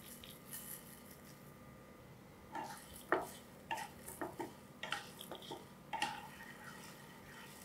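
Wooden spatula stirring whole coriander seeds and makhana roasting in ghee in a frying pan: a run of light scrapes and taps that starts a few seconds in and stops about six seconds in.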